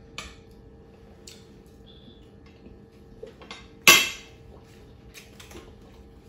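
A spoon clinking lightly against a large ceramic plate of rice, in a few scattered small clicks, with one sharp, louder clink a little before four seconds in.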